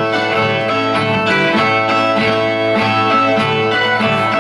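Ten-string Brazilian viola (viola nordestina) plucked and strummed in a steady rhythm, the instrumental interlude that repente singers play between sung stanzas.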